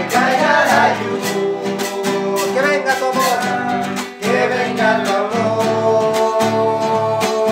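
A man singing a slow worship song to a strummed acoustic guitar, holding long notes in the second half.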